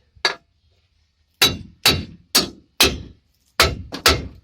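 Hammer blows on metal: one light tap, a pause of about a second, then six sharp clanging strikes about half a second apart, knocking an F250 rear axle part over its alignment pins.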